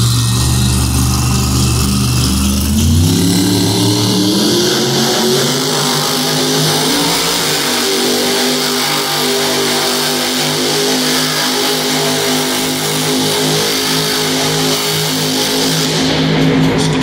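Grave Digger monster truck's supercharged V8 engine revving hard while the truck spins donuts in the dirt. A low, steady engine note climbs in pitch about three seconds in and then holds high.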